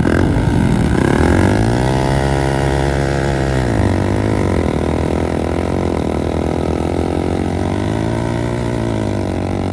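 Hero Splendor's single-cylinder four-stroke engine revving hard under load while pulling, the rear tyre spinning and digging into the soil. The revs climb about a second in, hold high, drop back near the middle and surge once more near the end.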